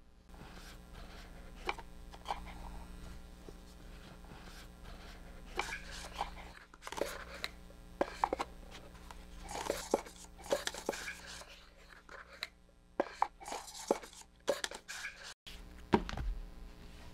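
Scattered light clicks, taps and rustles of small objects being handled on a desk, over a faint steady hum of room tone.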